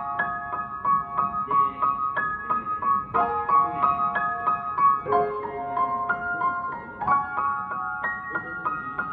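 Piano being played: a melody of struck notes that ring on and overlap, with lower notes beneath it.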